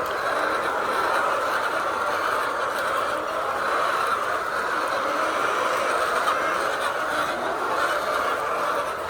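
Steady din of many hens clucking together in a poultry house.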